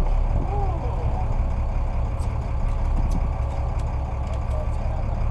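Fishing boat's engine running steadily at low revs, a constant low hum with no change in speed.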